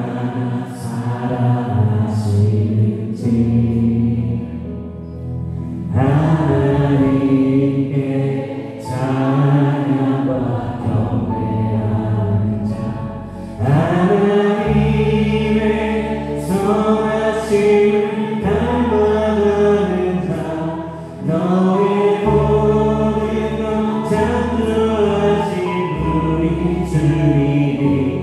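Church praise band playing a worship song: a group of voices singing over keyboard and electric bass, with long held low bass notes.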